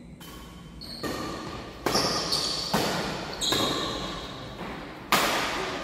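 Shuttlecock struck back and forth by badminton rackets in a fast doubles rally: a string of sharp hits about every half second to second, each ringing on briefly in a large hall, with a longer gap before a last hard hit near the end.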